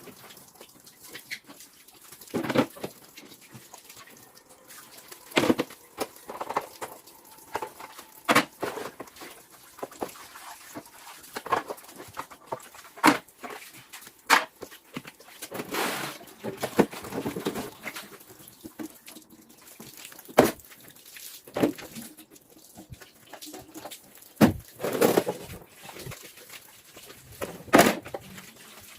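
Irregular knocks and clicks with a few short stretches of rubbing noise, as of things being handled and cleaned.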